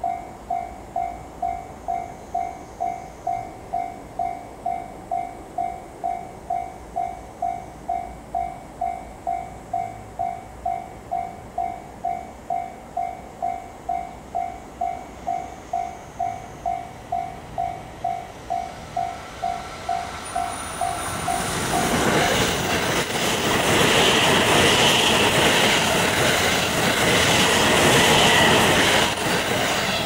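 Japanese level-crossing warning bell ringing about twice a second. From about 20 seconds in, an E257 series limited express electric train approaches and passes, its rushing wheel and body noise swelling to drown out the bell for the last several seconds.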